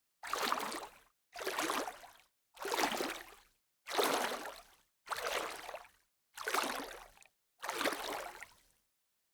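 Short rushes of water noise, each starting sharply and fading within about a second, repeated about eight times at roughly one a second with dead silence between them. A longer silent gap comes near the end.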